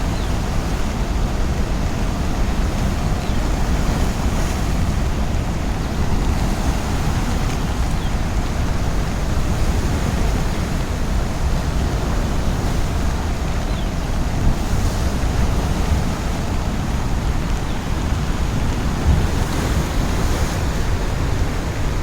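Steady rushing of a river in flood: an even, loud wash of water noise, heaviest in the low end, with no let-up.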